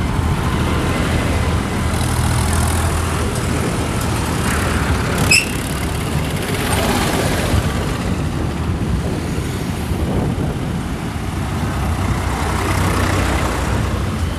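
Diesel farm tractors towing loaded trolleys drive past close by, one after another. The low engine drone and the tyre noise swell as each one goes by, and a short high squeal sounds about five seconds in.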